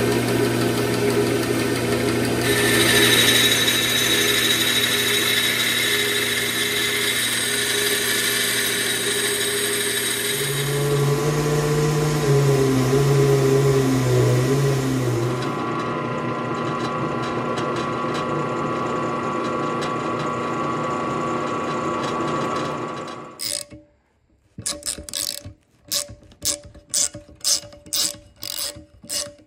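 Bandsaw running and cutting through a flat aluminium bar, followed by a drill press drilling holes in the aluminium. The machine stops a little before the end, and a run of quick, regular clicks follows as the holes are tapped by hand.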